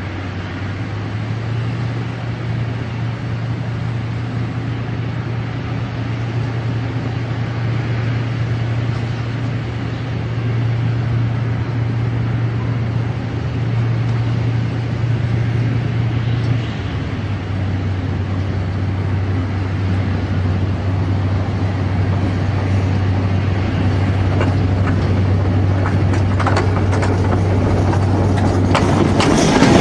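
Diesel locomotive approaching along the track, its engine drone growing steadily louder. The drone drops a little in pitch about halfway through. Near the end the wheels start clicking over the rails as it nears.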